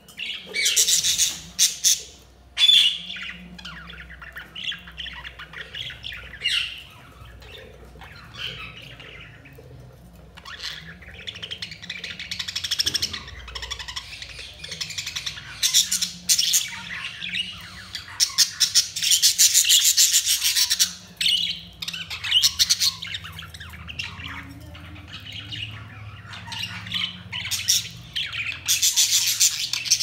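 Budgerigars chirping and warbling in long bursts of quick chatter, with stretches of softer, scattered chirps in between.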